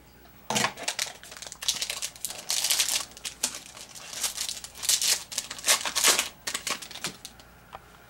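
A trading-card pack wrapper being torn open and crinkled by hand, in a run of irregular rustling and crackling bursts that stops about a second before the end.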